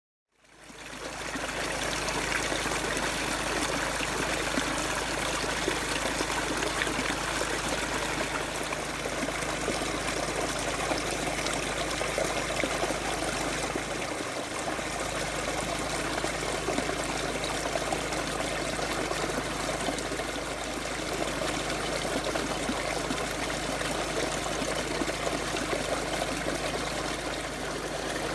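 Steady trickling and running of shallow water over a concrete weir, fading in over the first second.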